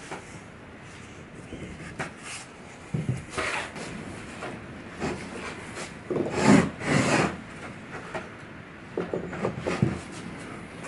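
Wooden drawer box being handled and shifted on a workbench: a series of irregular wooden knocks and scrapes, loudest about six to seven seconds in.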